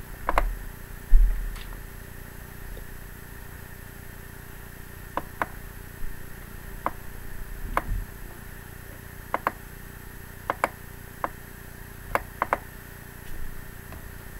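Computer mouse button clicks, single and in quick pairs, scattered through, over a faint steady hum, with a couple of low thumps in the first second and a half.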